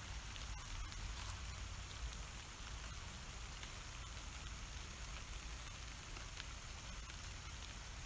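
Steady rain falling: an even hiss dotted with faint ticks of single drops, over a low rumble.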